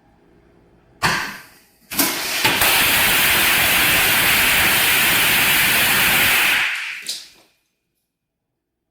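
Fireworks set off: a sudden burst about a second in, then a loud steady hiss for about four and a half seconds. It ends with a short burst and cuts off abruptly.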